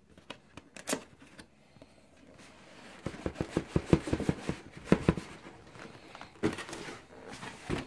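Cardboard shoe box being handled and turned over: a scatter of light knocks, taps and scrapes, busiest from about three to five and a half seconds in.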